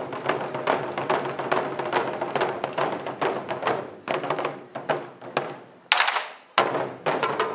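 An ensemble of large barrel taiko drums played together in a fast, driving rhythm. About four seconds in the beating thins and fades, then two loud single strikes land a little over half a second apart before the full group comes back in.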